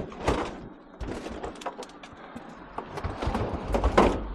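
Knocks, bangs and clatter of a dishwasher being shoved and manoeuvred into a van loaded with scrap metal, with a loud bang just after the start and another about four seconds in.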